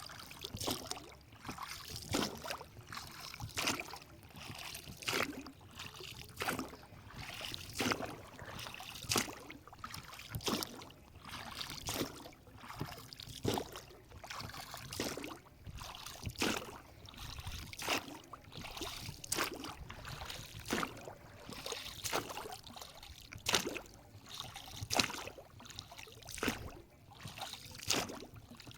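Water splashing and lapping in short, irregular splashes about once a second.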